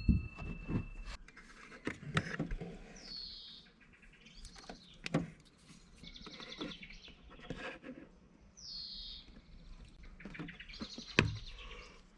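A small bird singing: two quick falling chirps with bursts of rapid trilled notes between them. A few sharp clicks and knocks, the loudest near the end.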